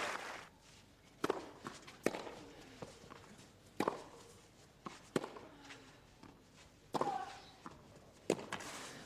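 Tennis ball struck with rackets on a clay court: a serve about a second in, then a rally of crisp racket hits roughly every one and a half seconds, six in all, with fainter ball bounces between them.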